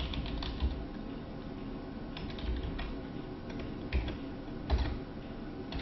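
Computer keyboard typing: scattered keystroke clicks, a few in quick succession and then a pause.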